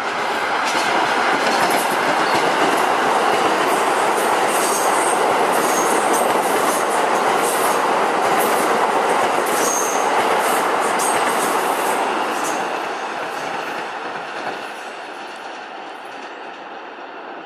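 R160 subway train passing at speed without stopping: a loud rush of steel wheels on rail with rail-joint clicks and a few brief high wheel squeals. It fades from about twelve seconds in as the train pulls away.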